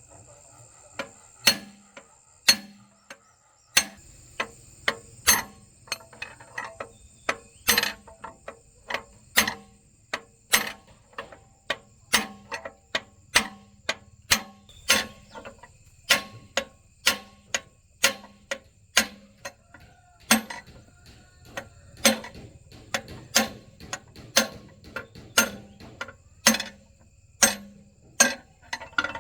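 Sharp metal knocks with a short ring, about one to two a second and unevenly spaced, like hammer blows on metal tractor parts.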